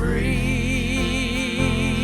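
Gospel song: a long held note with a wavering vibrato over steady low accompaniment.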